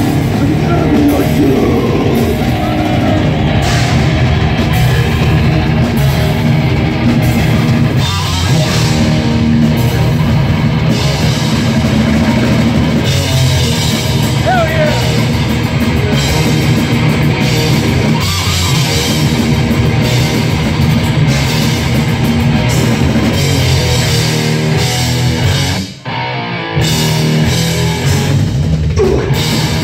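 Live heavy metal band playing loud on electric guitars and a drum kit, with a short break about 26 seconds in before the band comes back in.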